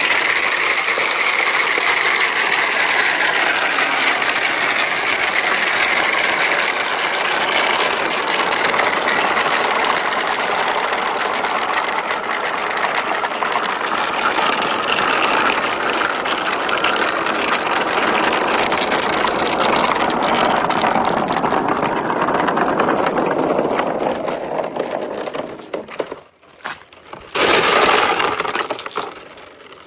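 Many marbles rolling down a marble run track: a dense, continuous rolling rattle. It thins out and stops about 26 seconds in, then a short final burst of rolling comes near the end.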